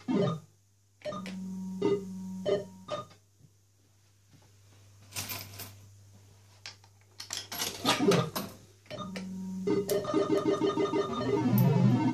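Old fruit machine's electronic sounds: a repeating pattern of short beeps, then two noisy bursts midway, then an electronic jingle that starts about ten seconds in and keeps playing.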